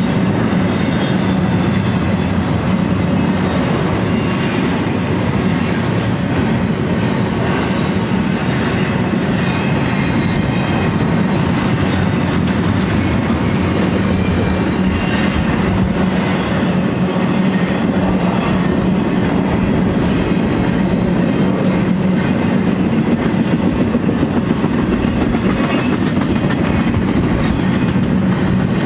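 Intermodal freight train of double-stack well cars rolling past: a steady, loud rumble and clatter of steel wheels on the rails.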